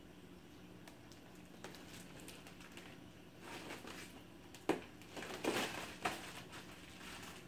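Plastic bag crinkling and rustling as it is handled, in bursts starting about three seconds in, with a sharp click partway through, over a faint steady hum.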